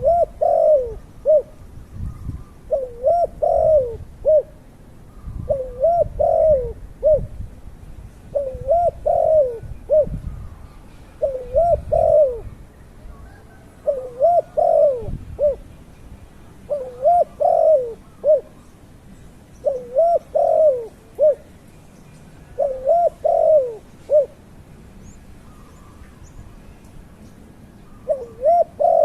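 A dove cooing: a short phrase of three or four low notes repeated about every three seconds, with a longer pause near the end. A low, uneven rumble runs underneath.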